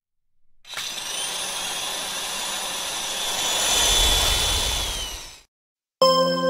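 A steady rushing, whining machine noise, like a motor or jet spinning, that swells and then falls in pitch and dies away about five seconds in. Synthesizer music starts about a second later.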